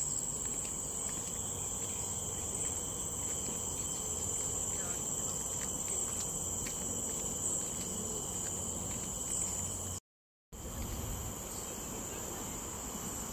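Steady, high-pitched chorus of forest insects, with a fainter second steady drone lower in pitch. It cuts out to silence for half a second about ten seconds in.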